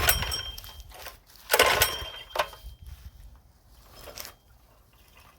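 Mini bike's small engine being pull-started by its recoil rope: two hard pulls about a second and a half apart, then a weaker one, and the engine, which has sat unused for three or four years, does not catch.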